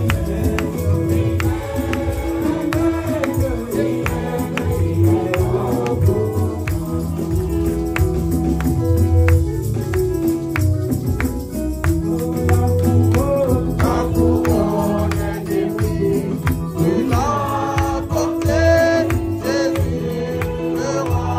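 Gospel praise-and-worship music: voices singing together over sustained bass notes and a steady percussion beat.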